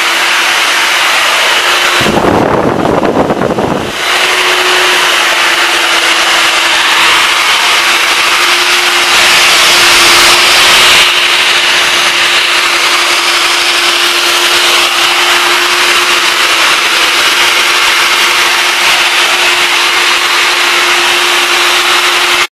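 The RC Boeing 767-300F's 70 mm 12-blade electric ducted fans running steadily: one steady whining tone over a loud rush of air. A low rumble about two seconds in lasts about two seconds, and the sound swells louder and brighter for a couple of seconds near the middle.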